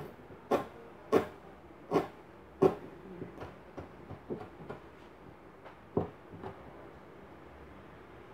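Kitchen knife mincing green herbs on a plastic cutting board: a few sharp knocks about two-thirds of a second apart, then lighter taps, and one more knock about six seconds in.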